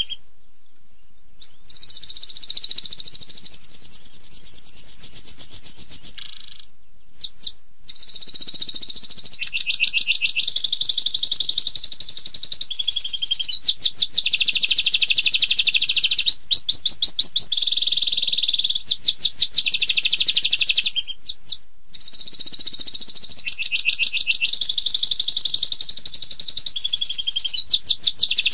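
Domestic canary singing a long song made of fast trills and rapid runs of repeated sharp, high notes, changing from one rolling phrase to the next. There are brief breaks at the start, about seven seconds in, and about twenty-one seconds in.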